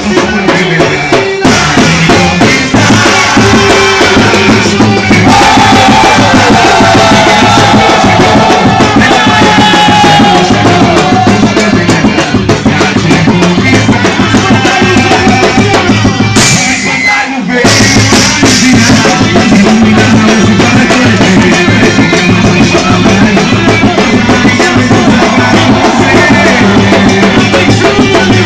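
Loud quadrilha junina music with a steady drum beat. It breaks off briefly about seventeen seconds in, then resumes.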